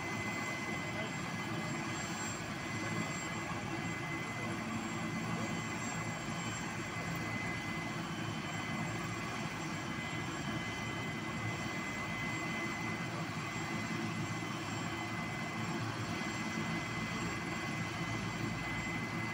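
Helicopter's turbine engine running on the ground: a steady sound with a constant high-pitched whine over it.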